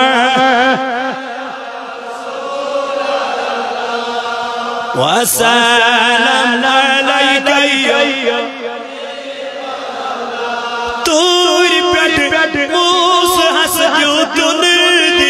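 A man's voice singing a Kashmiri naat, a devotional song in praise of the Prophet, into a microphone. He holds long notes with wavering ornaments and slides up into a new phrase about five seconds in. The sound jumps abruptly louder about 11 seconds in.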